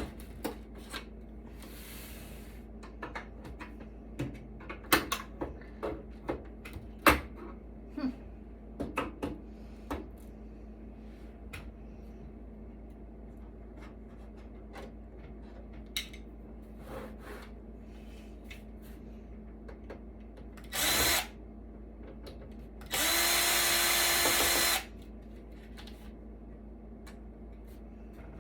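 Scattered clicks and taps of metal parts being handled, then a cordless drill-driver runs briefly and then again for about two seconds at a steady speed, backing screws out of a metal equipment chassis.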